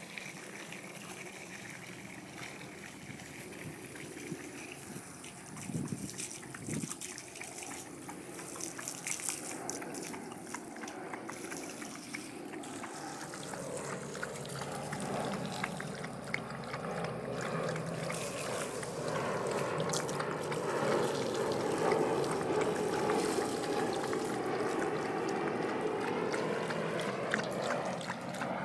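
Bullmastiff puppy lapping water from a stainless steel bowl: a steady run of wet splashy laps and small ticks of water that grows fuller in the second half.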